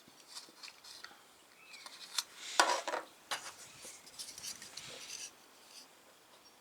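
Plastic model kit parts being handled: scattered light clicks and rustling, with a louder clatter about two and a half seconds in.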